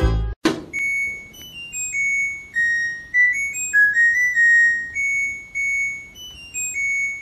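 A washing machine's electronic beeper playing its end-of-cycle tune: a simple stepwise melody of high, pure beeping notes. Before it, loud music with a heavy beat cuts off abruptly at the very start, followed by a single thud.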